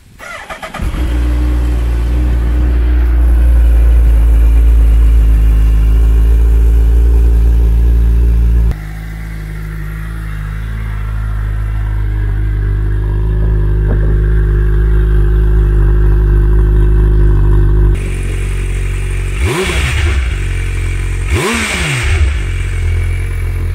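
2024 Suzuki Hayabusa's 1340 cc four-cylinder engine through its stock exhaust: the starter cranks briefly, the engine catches within a second and settles into a steady idle. Near the end there are two short throttle blips, each rising and falling in pitch.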